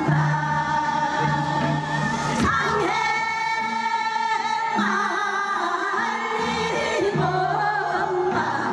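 A women's chorus singing a Gyeonggi minyo (Korean folk song) together into microphones through a PA, in long held notes with a wavering pitch.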